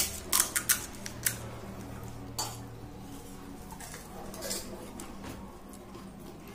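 Stainless-steel cups, plates and bowls clinking and knocking against each other, several sharp clinks close together in the first second and a half, then a few more spaced out.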